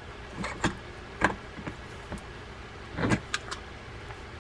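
Scattered light clicks and taps of small metal reel parts being handled, as the stuck keyed drag washers and main gear are worked off the gear stack of a Daiwa Saltist conventional fishing reel, with a small cluster of clicks about three seconds in.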